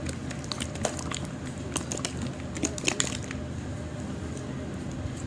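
Plastic slime container being handled and opened: a quick run of small clicks and taps in the first three seconds, then it settles.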